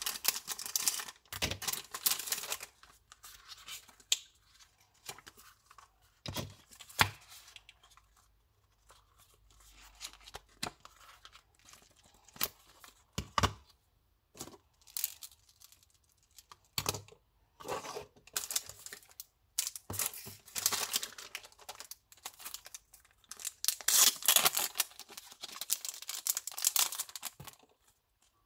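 Packaging being opened and handled: bouts of rustling, crinkling and tearing of wrapping, with scattered sharp clicks and taps. The longest and loudest rustling comes in the second half.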